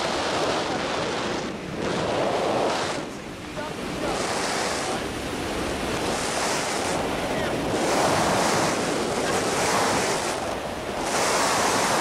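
Wind rushing over the camera microphone during a tandem parachute descent: a loud, steady rush that dips briefly every few seconds.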